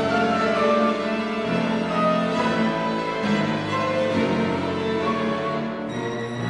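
Piano quintet playing chamber music: piano with two violins, viola and cello, held string notes over piano, the harmony shifting every second or two.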